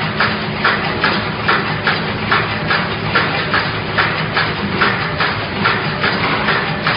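Automatic wire mesh resistance welding machine running, its row of welding heads striking the mesh in an even rhythm of about two to three clacks a second over a steady low hum.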